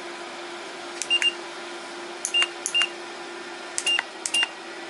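PTC ceramic fan heater beeping in acknowledgement of button presses while its timer is stepped through: about six short high beeps, each with a click, against the fan running with a steady hum.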